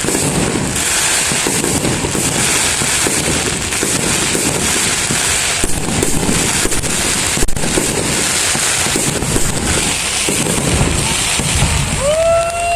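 Fireworks display going off continuously: a dense run of crackling bangs and booms, with one sharper crack about seven and a half seconds in. A rising pitched tone comes in near the end.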